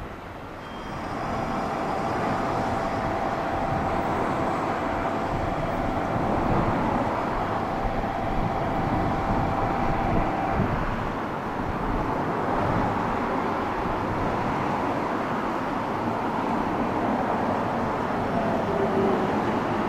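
JR Kyushu 813 series electric multiple unit pulling into a station, its wheels rumbling on the rails as it slows. The noise swells about a second in, and a steady whine sounds until about halfway through.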